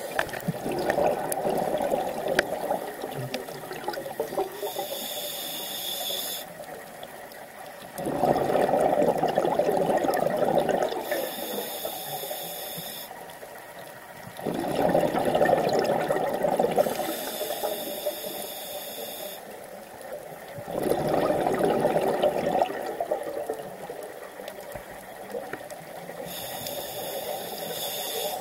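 Scuba diver breathing through a regulator underwater, about four breaths. A short high hiss on each inhale alternates with a longer gurgling rush of exhaled bubbles.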